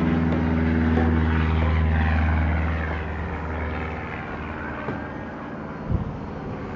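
A low, engine-like droning hum that is loudest over the first few seconds and then fades. Near the end come a couple of sharp metallic knocks, footfalls on steel steps.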